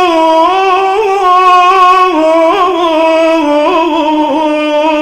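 A man's voice chanting a Shia lament (radood recitation), drawing one syllable out into a long melismatic line that wavers and steps slowly down in pitch without a break.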